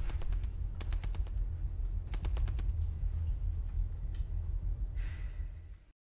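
Three quick rattling runs of sharp clicks over a steady low hum. The sound cuts off abruptly near the end.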